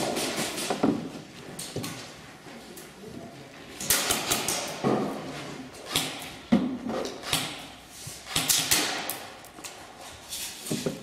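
Scattered sharp clacks and knocks of indoor airsoft play: airsoft guns firing and BBs striking the barrier panels. They come in short clusters about four seconds in, around eight and a half seconds, and again near the end.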